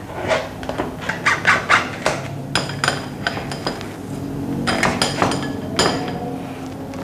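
A kitchen utensil knocking, clinking and scraping against a sieve in quick, irregular strokes as steamed potatoes are pressed through it to mash them. A few of the clinks ring briefly.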